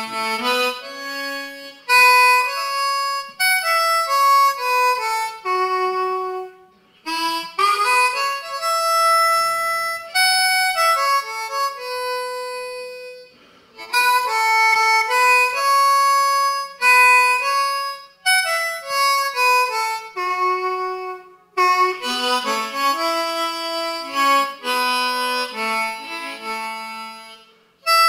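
Solo blues harmonica, played cupped into a microphone: quick runs of notes that mostly step downward, in about four phrases of six or seven seconds, each ending in a brief break.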